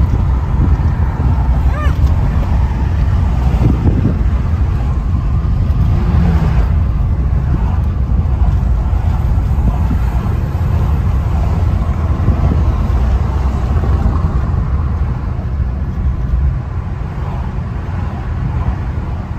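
Steady low rumble of a car driving at road speed, heard from inside the cabin: tyre, road and engine noise.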